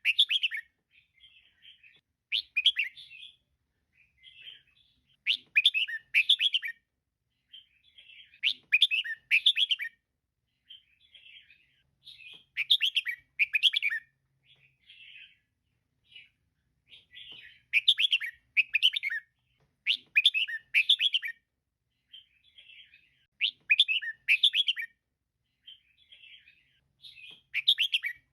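Female red-whiskered bulbul calling: short bursts of bright chirping notes repeated every two to three seconds, with softer chattering notes in between.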